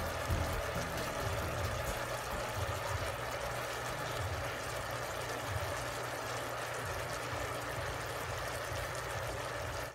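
Pork humba (braised pork belly) simmering in its sauce in an uncovered pot: a steady bubbling hiss.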